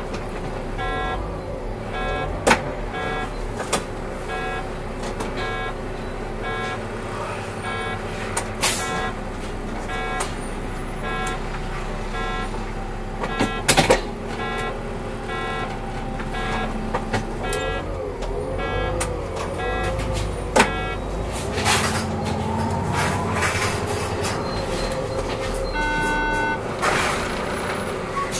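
Solaris Urbino 8.9LE city bus driving, heard from inside: steady engine and road noise with scattered knocks and rattles. A regular beeping about twice a second runs through the first twelve seconds. A whine rises in pitch a little after twenty seconds in, and a short beep sounds near the end.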